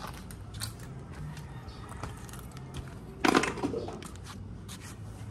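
Hand tools and parts being handled during engine work: light clicks and scrapes, with one louder clatter a little over three seconds in.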